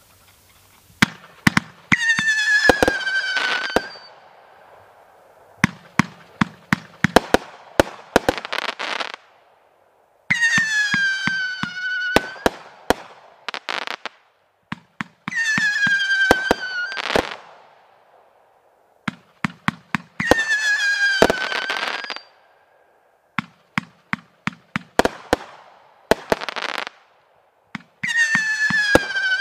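World Class 'Say What?' fireworks cake firing in repeating volleys: clusters of sharp launch and burst bangs alternating with shrill whistles. Each whistle lasts about two seconds and slides slightly down in pitch, five in all, with a hiss trailing some of them.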